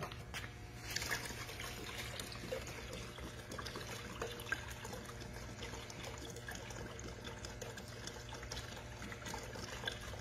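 Water pouring from an upended plastic bottle into a shallow plastic tub of liquid, a steady trickle and splash that starts about a second in, with a few small clicks from handling the bottles.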